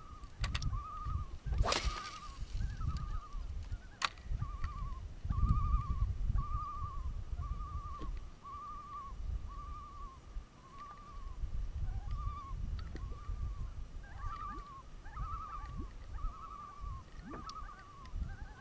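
Spinning reel being cranked on a steady retrieve, giving a faint warbling squeak with each turn of the handle, about two a second. A sharp knock sounds about two seconds in.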